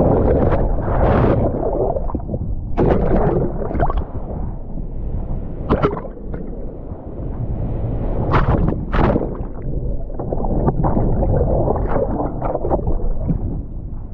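Wind rumbling on the microphone, with water sloshing and splashing and a few sharper splashes midway.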